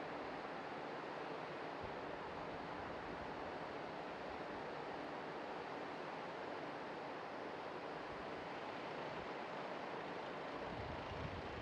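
Steady outdoor background rush, even and without distinct events, with a low rumble coming in near the end.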